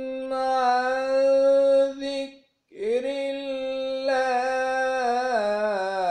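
Male Quran reciter chanting in maqam Kurd, drawing out long held vowels. He takes a short breath about two and a half seconds in, then holds a second long note that steps down in pitch and turns into ornamented wavering near the end.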